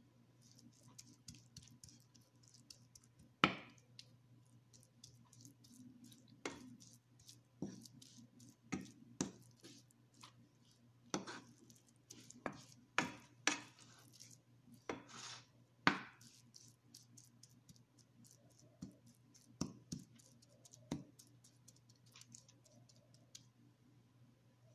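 Spatula stirring grated carrots in a non-stick frying pan: irregular scrapes and taps against the pan, thickest in the middle and thinning out near the end, over a steady low hum.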